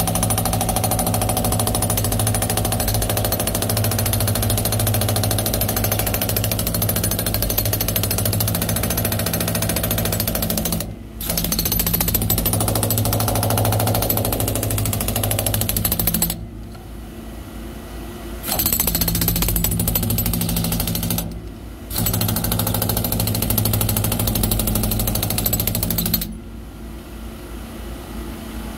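Jackhammer chipping hardened concrete out of a cement mixer truck's drum, running in long loud stretches. It pauses briefly about 11 seconds in, for about two seconds in the middle, briefly again later, and stops a couple of seconds before the end. In the pauses a steady low engine hum is left.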